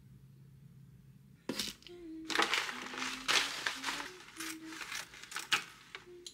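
Granola pouring into a bowl, a dense rattle of crunchy clusters striking the bowl for about three and a half seconds, after a click about a second and a half in. A faint tune runs underneath.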